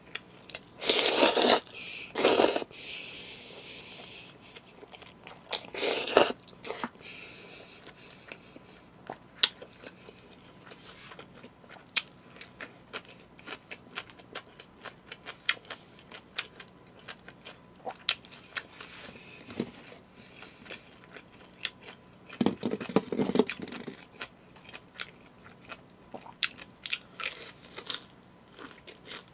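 Close-miked eating of jajangmyeon and crispy fried sweet-and-sour pork: a few loud slurps of noodles, the first about a second in, then another around six seconds and one past twenty seconds. In between comes a steady patter of small wet chewing and crunching clicks.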